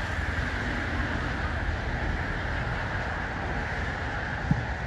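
Steady outdoor background noise, a low fluttering rumble under a hiss, with one short thud about four and a half seconds in.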